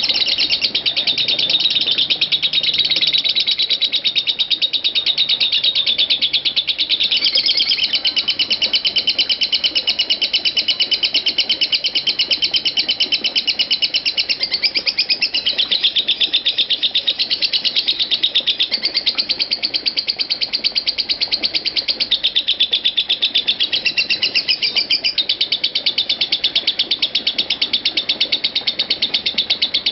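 Masked lovebird's ngekek: a rapid, high-pitched chattering trill that runs on without a pause. This is the unbroken 'konslet' style of ngekek.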